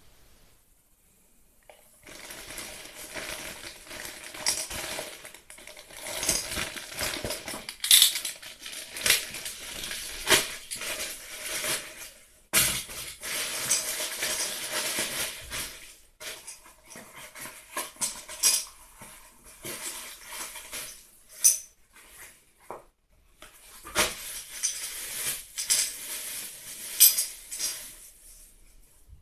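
Plastic postal mailer and the plastic wrapping inside it crinkling and rustling as they are handled and pulled open, in stop-start bursts with sharp clicks, and metal clinks from a three-jaw adjustable oil filter wrench as it is taken out.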